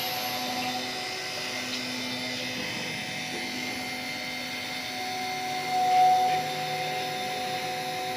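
Micro drilling machine running with a steady machine whine over a hiss. The whine swells briefly about six seconds in.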